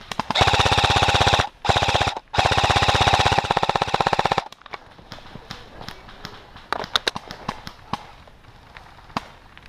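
Airsoft electric rifle, an Umarex HK416D, firing on full auto in three bursts close to the microphone: about a second, then a short burst, then one of about two seconds, its gearbox cycling at a fast even rate. Scattered faint clicks and snaps follow.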